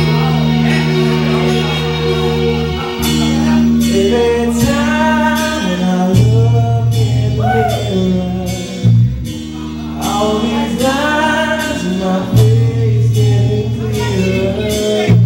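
Karaoke: a man singing into a microphone over a loud backing track. The backing track has held bass notes that change every few seconds, and the voice grows stronger about four seconds in.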